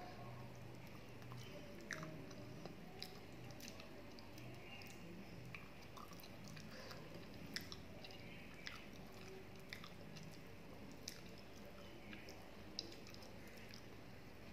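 Close mouth sounds of a person eating rice and curry by hand: soft chewing with small wet clicks and smacks every second or so, a few sharper than the rest, over a faint steady hum.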